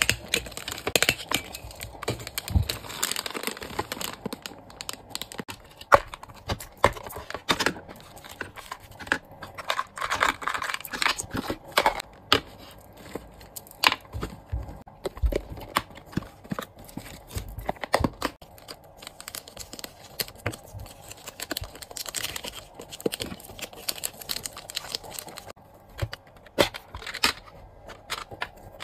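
Clear plastic bags and sleeves crinkling and rustling as they are handled, with many sharp clicks and taps of small plastic items like pens being set down, scattered irregularly throughout.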